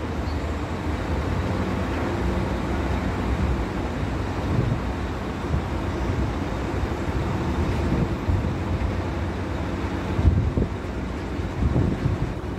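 Heavy diesel machinery running with a steady low rumble: a truck-mounted telescopic crane working as its boom extends, with a concrete mixer truck standing by. A couple of brief louder knocks come near the end.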